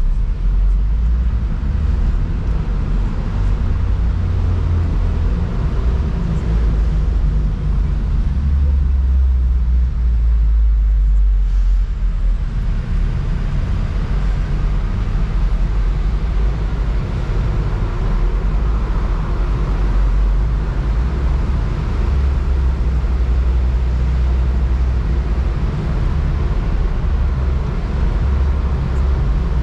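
BMW Z4 convertible under way: engine, tyre and wind noise blended into a steady, heavy low rumble, easing briefly about twelve seconds in.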